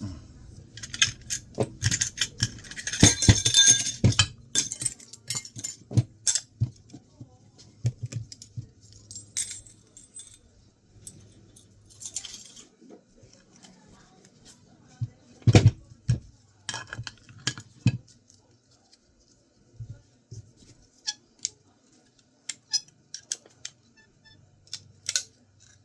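Small metal parts and hand tools clinking and tapping on a work surface while a hard drive is being taken apart. There is a scraping rustle over the first few seconds and a cluster of louder knocks about two-thirds of the way through.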